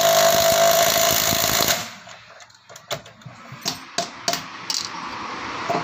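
Cordless impact wrench hammering on a wheel hub nut in a fast, loud rattle with a ringing tone, stopping about two seconds in. Scattered light metal clicks and taps follow as the hub is worked by hand.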